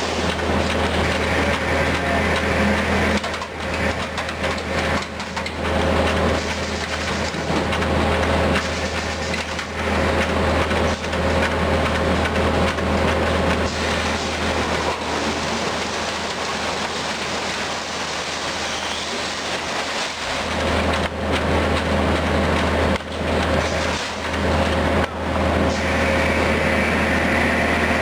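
A 1989 Finn-Power TP 3015 CNC turret punch press with shear running its program and cutting sheet stock. There is a steady low hum and a constant mid-pitched whine under dense mechanical noise, with several brief dips in level.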